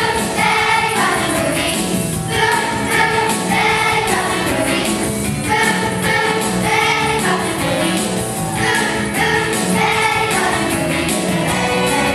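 A children's choir singing a song from a school musical over instrumental accompaniment.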